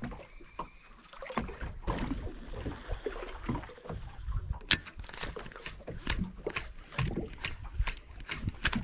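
Water slapping and sloshing against the hull of a drifting boat, with many irregular sharp clicks and knocks.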